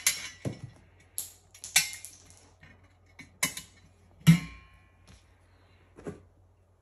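Stainless steel oven parts being handled: a handful of small clicks and taps as the door handle comes off the oven. The loudest is a metallic clunk about four seconds in, with a brief ring.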